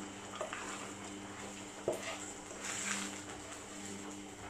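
Eggs cooking in a frying pan: a soft sizzle that swells briefly just before three seconds, over a steady hum. A light knock of a utensil on the pan about two seconds in.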